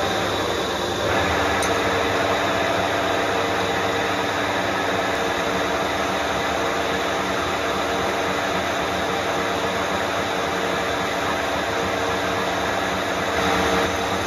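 Harrison M400 lathe running steadily, with a boring bar cutting the bore of a large metal plate spun in the four-jaw chuck.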